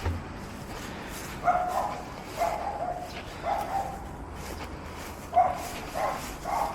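A dog barking: six short barks, three and then three more after a pause.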